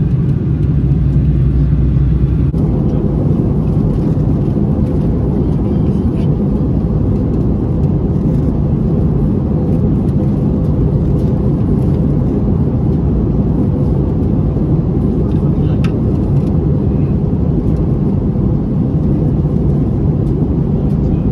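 Steady cabin noise inside an Airbus A320-232 in flight: the drone of its two IAE V2500 turbofans and the rush of air past the fuselage. The low rumble shifts slightly about two and a half seconds in.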